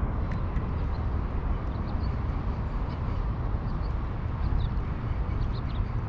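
Steady wind rumble buffeting the microphone, with a few faint high ticks scattered through it.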